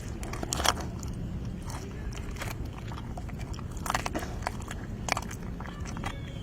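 A cougar biting and chewing its food, with irregular sharp crunches and clicks every second or so.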